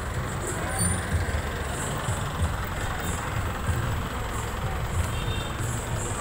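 City street traffic: a steady low engine rumble from passing vehicles, a light truck among them.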